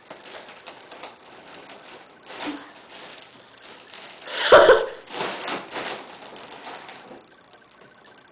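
A balloon handled close to the microphone, giving irregular rustling and hissing noise, with one loud burst of noise about four and a half seconds in.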